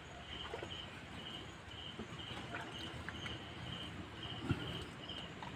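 An insect chirping in a steady rhythm, about two to three short high chirps a second, with a few faint knocks.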